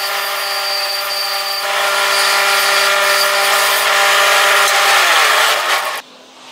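Old cast-iron bandsaw running with a steady motor hum, its blade cutting through a small workpiece with a louder rasp from about two seconds in. Near the end the pitch falls as the saw spins down, and the sound cuts off suddenly.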